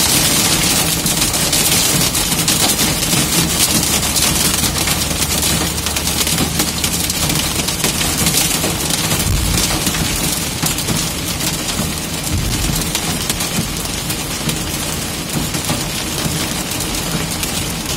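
Hail and heavy rain pelting a van's roof and windshield, a dense, loud rattle of small impacts heard from inside the cab, easing slightly toward the end, with the van's engine running low underneath.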